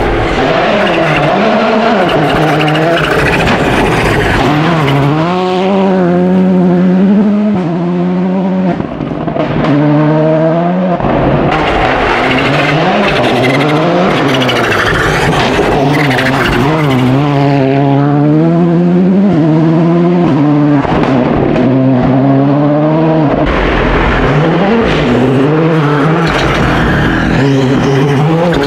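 Rally cars running flat out on a gravel stage, one after another. Their engines climb in pitch and drop back over and over as the drivers change gear and lift for the bends, with loose gravel noise under the tyres.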